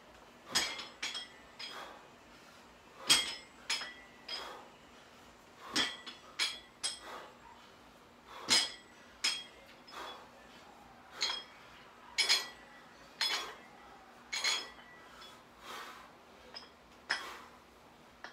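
Metal plates of dumbbells clinking as they are lifted and lowered through repetitions. There is a sharp, briefly ringing clink every couple of seconds, sometimes two close together.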